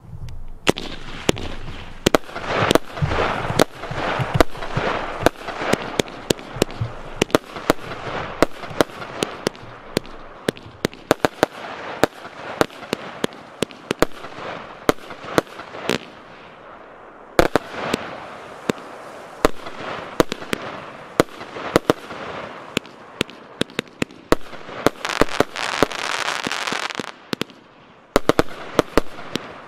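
Piromax Hadron 4-in-1 fireworks cake, a 100-shot battery of 25 mm tubes, firing shot after shot. Sharp reports come several times a second over a hiss that swells and fades in spells.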